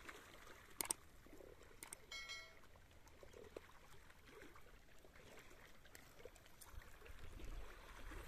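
Near silence with a faint trickle of shallow water. A single sharp click comes about a second in, and a brief faint pitched note just after two seconds.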